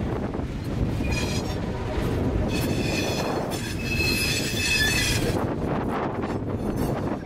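A long freight train of refrigerated boxcars rolling past with a steady low rumble. Its steel wheels squeal in high-pitched tones, briefly about a second in and again for about three seconds from two and a half seconds in.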